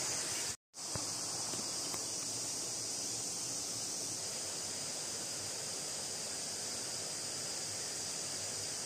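Steady, high-pitched drone of an insect chorus, broken by a brief moment of total silence about half a second in.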